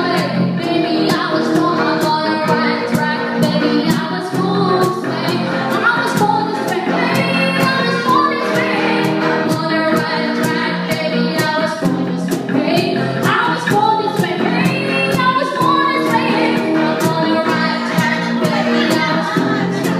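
A live band plays a song with a singer, a female voice among the singers, over a guitar.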